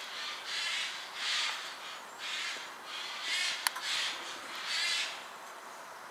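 A run of short raspy animal calls, about one a second, with a single sharp click a little past the middle.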